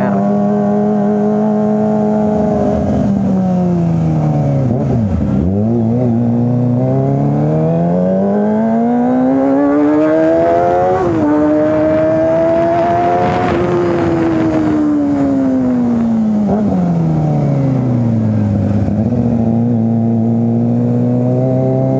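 Kawasaki ZX-25R's 249 cc inline-four engine being ridden through a 3 Tech Racing Evolution aftermarket exhaust. The note holds steady, drops low, then climbs through the revs with a sudden jump in pitch about halfway. It falls back to a low steady note and starts rising again near the end.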